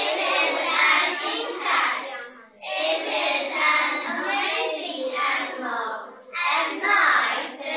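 A group of schoolgirls reading an English passage aloud in unison, in a sing-song classroom chant, in three phrases with short breaks between them.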